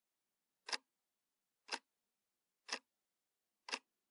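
Four faint, evenly spaced ticks, one each second, like a clock ticking.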